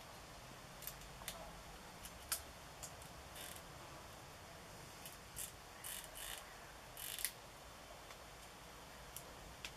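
Red squirrel gnawing a walnut shell with its teeth: faint, irregular sharp clicks and short rasping scrapes, the sharpest crack about two seconds in and a run of rasps between about five and seven seconds.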